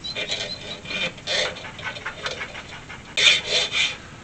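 Hacksaw blade cutting through a metal brake-pedal pushrod attachment clamped in a bench vise, in uneven back-and-forth strokes. Three strokes close together about three seconds in are the loudest.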